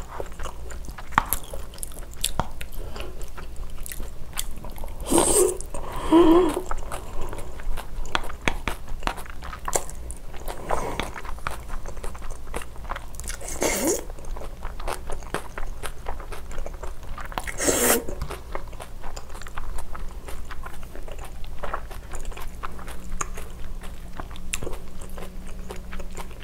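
Close-miked chewing of spicy cold noodles with young-radish kimchi: a dense run of small wet clicks and crunches, with louder slurps about 14 and 18 seconds in.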